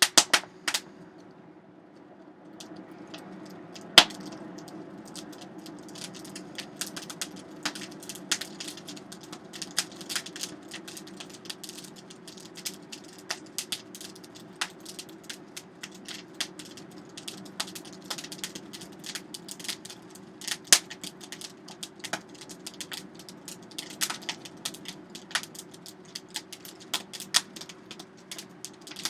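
Hand-cranked Canedy-Otto forge blower whirring steadily, with the burning wood and coal in the forge crackling and snapping irregularly throughout; one loud snap about four seconds in.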